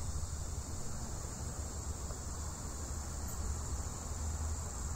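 Steady high-pitched chorus of insects, crickets or similar, chirring without a break, over a low rumble.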